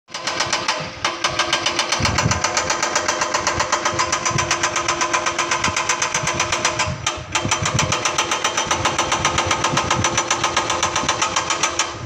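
Excavator working a rock road cut: a fast, even mechanical clatter of about eight beats a second over a steady hum, breaking off briefly twice.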